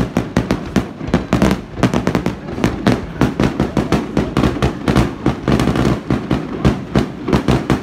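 Aerial fireworks display bursting in a rapid, continuous run of loud bangs and crackles, several a second, with a deep rumble under them.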